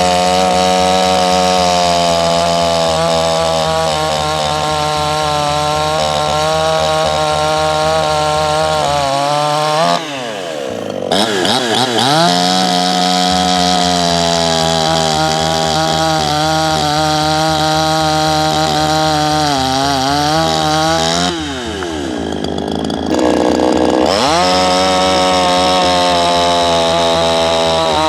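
Garland Indiana 8 gasoline chainsaw running at high revs through a cut. The engine drops off throttle twice, about ten and twenty-one seconds in, and revs back up each time.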